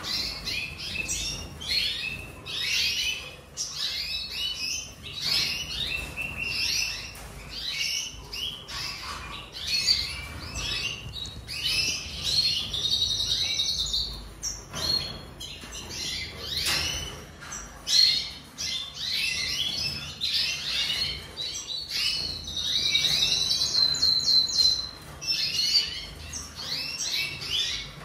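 Red siskin singing a long, fast twittering song of chirps and warbled notes, with drawn-out trills about halfway through and again near the end.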